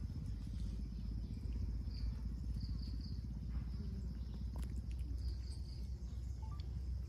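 Outdoor forest ambience: a steady low rumble throughout, with insects chirping faintly in short high-pitched pulses that come in small groups a few times.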